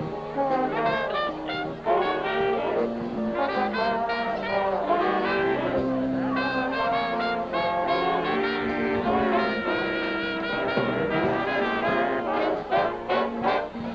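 A school band playing a piece, with brass instruments carrying the tune in held and moving notes.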